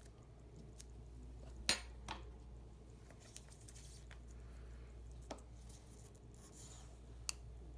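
A few short, faint clicks from a watch movement and small parts being handled on a bench, the sharpest about two seconds in and another near the end, over a steady low hum.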